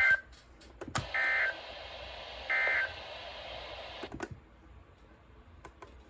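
Emergency Alert System end-of-message data bursts on a NOAA Weather Radio broadcast: three short, identical digital warbling bursts about a second and a half apart over radio hiss. A click about four seconds in, and the hiss drops away as the transmission ends.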